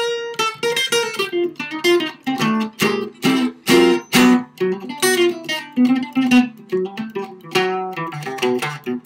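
Solo archtop jazz guitar played unaccompanied: a flowing chord-melody of plucked chords mixed with single-note lines, each note struck cleanly and ringing briefly.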